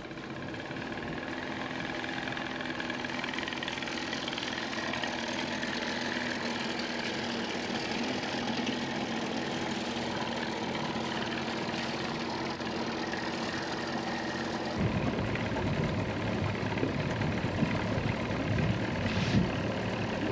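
Small outboard motor running as the aluminium skiff gets under way, a steady engine hum that swells over the first couple of seconds. About fifteen seconds in it turns abruptly louder and rougher, the motor now heard from on board the moving skiff.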